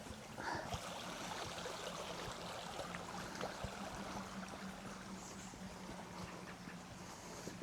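A creek running, a steady rush of water.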